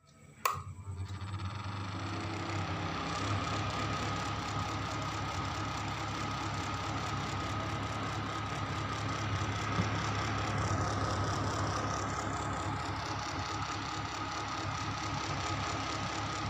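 Electric room heater switched on with a click, then running with a steady rough hum and a thin whine: the abnormal noise that the heater is being repaired for.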